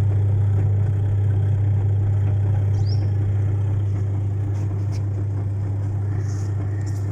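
Super Asia top-load washing machine's wash motor running with the tub still empty, a steady low hum.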